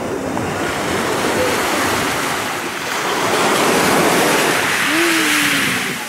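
Sea waves breaking and washing up onto a pebble beach, the wash swelling louder about three to five seconds in.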